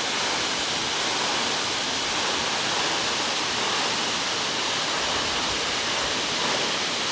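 Waterfall: a thin, low-water fall pouring steadily down a rock face into a pool, giving an even, unbroken hiss.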